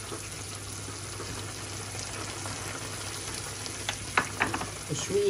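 Tomato sauce sizzling steadily in a frying pan over low heat. A few light clicks come near the end.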